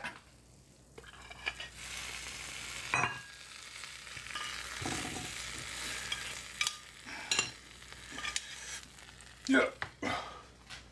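Metal spoon scraping sticky sauce-coated chicken bites out of a hot oven dish into a ceramic bowl: a steady sizzling hiss with several clinks of the spoon against the dish, and a louder knock near the end.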